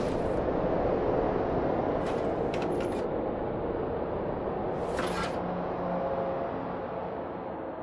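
Low rumbling sound-design drone of a film soundtrack, swelling up early and slowly fading, with a few brief hissing swishes about two and five seconds in.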